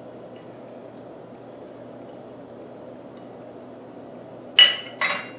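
Two sharp metallic clinks about half a second apart near the end, each with a brief ring: a small stainless steel measuring cup set down on a granite countertop. Before that, only faint room tone.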